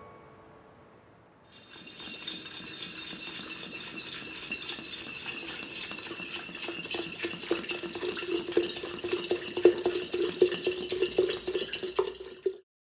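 Liquor poured in a steady stream into a glass jar of green plums and rock sugar, splashing and bubbling. It starts about a second and a half in, grows a little louder and stops abruptly just before the end.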